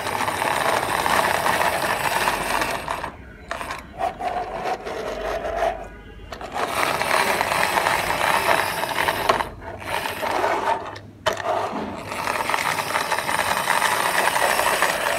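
Plastic toy police car pushed back and forth along a table by hand, its wheels and gears whirring and rattling. The sound comes in pushes of two to three seconds with short breaks between them.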